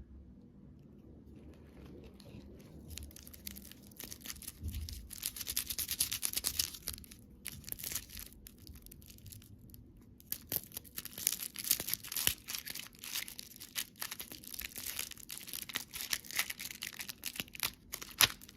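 Plastic candy wrapper crinkling and tearing as it is opened, in two long bouts with a short pause between them.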